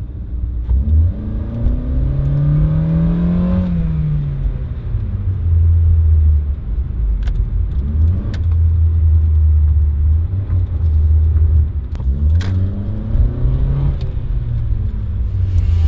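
A 2002 Mitsubishi Lancer's 2.0-litre four-cylinder with automatic transmission, heard from inside the cabin while driving, with a heavy low drone. The engine note climbs under acceleration and drops as the transmission shifts up, once early on and again near the end, with a few faint clicks between.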